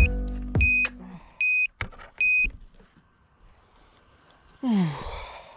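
A run of short electronic beeps of one steady pitch, four of them evenly spaced over the first two and a half seconds, over the last low notes of a music track. Near the end comes a short vocal sound that slides in pitch.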